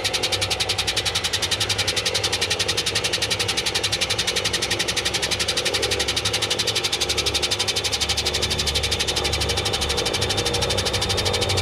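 Washing machine running, a fast, even pulsing over a low motor hum that swells about two-thirds of the way through.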